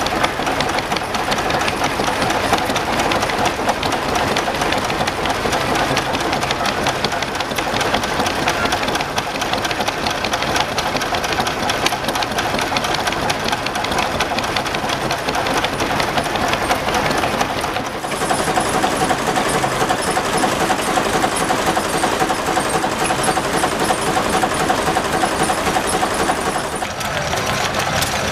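Vintage stationary engines running, starting with a green Lister engine driving belt-driven machinery: a fast, even mechanical clatter. About two-thirds of the way through, the sound changes suddenly to a different engine mix with a high ticking and a steady tone, and it changes again near the end.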